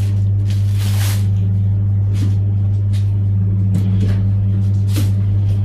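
A steady low hum throughout, with the faint rustle and scrape of plastic-wrapped tent bags and a cardboard shipping box being handled: one longer rustle about a second in, then a few brief ones.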